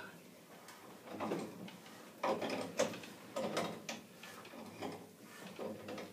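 A spud wrench working a furnace gas valve loose from its gas pipe: a string of irregular metallic clicks, clanks and scrapes.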